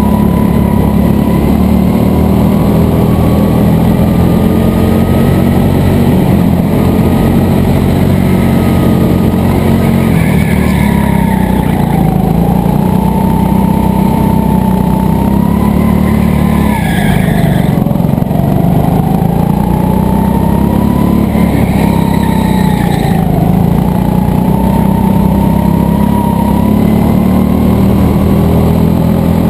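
Go-kart running flat out, heard from on board: a steady motor drone under a whine that climbs along the straights and drops sharply three times as it slows for corners, each drop with a brief burst of scrubbing noise.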